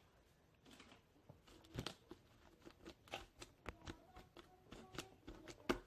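Faint, irregular crackling and clicking of crunchy slime packed with small foam beads being squeezed and kneaded by hand, with one sharper click near the end.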